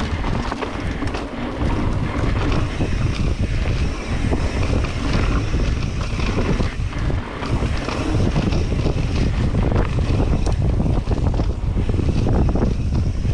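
Wind rumbling on the microphone of a mountain bike riding fast down a dirt flow trail, with frequent knocks and rattles from the bike over the bumps.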